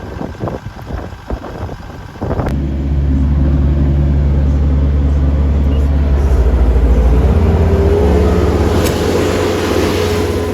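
A few irregular clunks, then about two seconds in an engine suddenly comes up to a loud, steady run and holds there.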